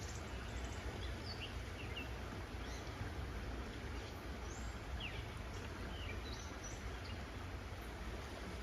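Scattered short bird chirps, a dozen or so brief calls, over a steady outdoor hiss with a low rumble underneath.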